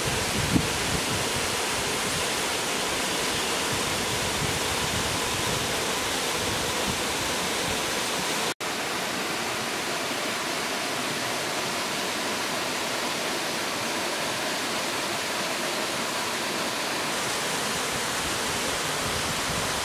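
Steady rushing water, like a stream or waterfall, an even hiss with no let-up; it drops out for an instant about eight and a half seconds in.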